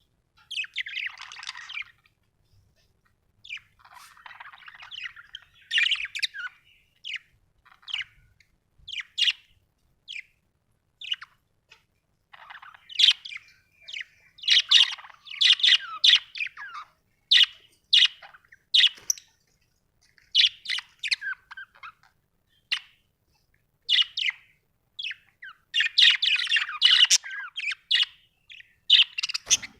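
Budgerigars chirping and warbling in short, irregular bursts of quick high chirps, with brief pauses between phrases.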